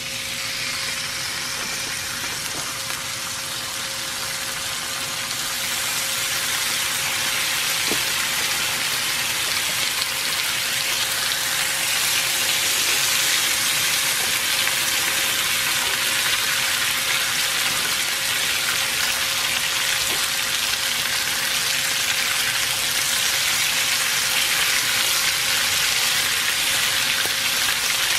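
Bacon sizzling on a hot gas-fired griddle plate. The sizzle grows louder over the first dozen seconds as more strips are laid down, then holds steady.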